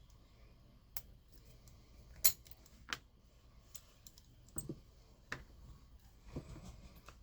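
Scattered sharp metallic clicks and taps from lock picks working a Master Lock padlock, the loudest a little over two seconds in.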